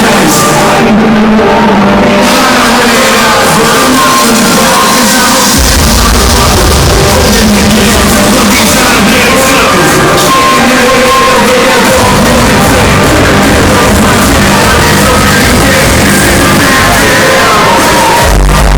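Hardstyle DJ set blaring over a large hall's sound system, captured loud and rough from the crowd. Heavy bass comes in about five seconds in, eases off, returns around twelve seconds and hits hardest near the end, with the crowd shouting and singing along.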